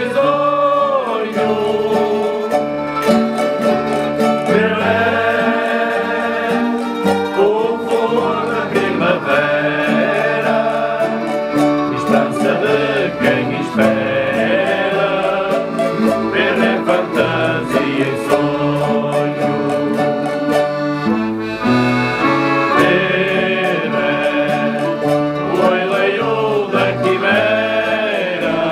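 A folk group singing a Portuguese Janeiras song together, accompanied by strummed guitars, mandolins and an accordion.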